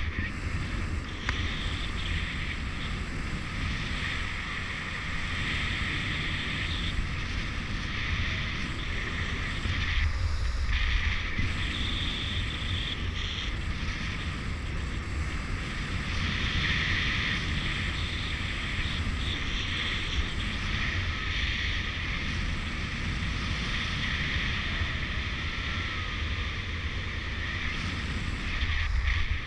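Wind rushing over a camera microphone on a paraglider in flight, a steady low rumble with a hiss that swells and eases slightly.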